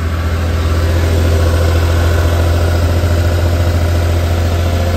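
Honda Acty Street kei van's small three-cylinder engine idling steadily, heard close up from beneath the van, running fine just after an oil change and new spark plugs and wires.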